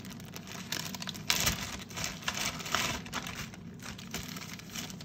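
Clear plastic bags crinkling and rustling as they are handled, in irregular spurts, the loudest about a second and a half in.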